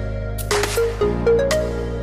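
Electronic music with a steady bass, a stepping synth melody and sharp drum hits.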